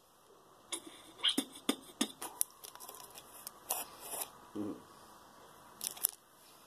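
A plastic bottle being handled in the hands: a series of light clicks and scratches, most of them in the first two and a half seconds, with more near the middle and end.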